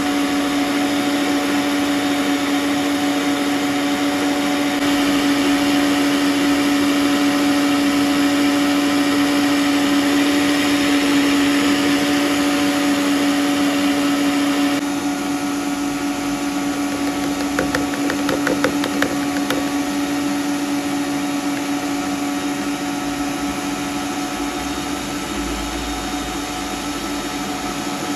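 Electric stand mixer's motor running at high speed, its whisk beating eggs and sugar into a foam for sponge cake: a steady motor hum. About halfway through the hum drops a little in level, followed shortly by a brief run of quick rattling clicks.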